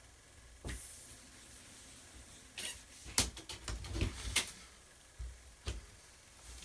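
A run of sharp clicks and knocks from handling drone parts and packaging, with one knock early on, a quick cluster of clicks between about three and four and a half seconds in, and one more near the end.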